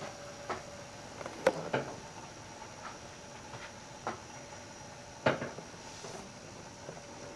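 Homemade Stirling engine running on a cup of hot water, its flywheel and wire linkages giving light, irregular clicks and knocks about once a second, over a faint steady hum.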